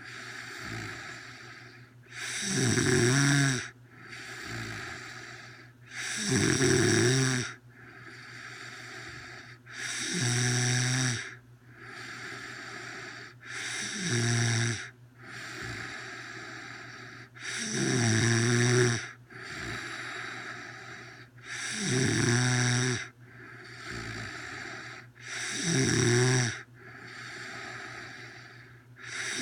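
A sleeping woman snoring loudly and rhythmically, with a strong snore about every four seconds, seven in all, and softer breathing between them.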